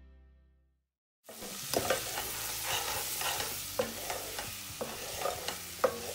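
The tail of background music fades out in the first second; after a short silence, a wooden spoon stirs diced potatoes, bacon and flour in a hot pot, with steady sizzling underneath and repeated sharp scrapes and knocks of the spoon against the pot, the loudest sounds. The flour is cooking in the butter and fat before the liquid goes in.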